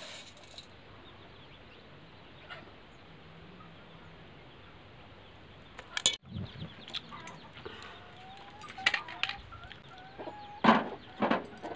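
Faint chicken clucking from about halfway through, then near the end a loud clank as an aluminium pot is set down on a gas stove.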